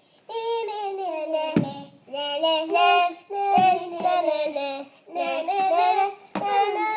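A child singing a tune unaccompanied, in short phrases with brief breaks, with a few soft knocks between phrases.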